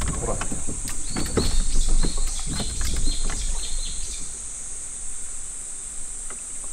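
A wild bird singing a run of short, repeated high notes for about three seconds, starting about a second in, over a steady high-pitched drone from the surrounding woods.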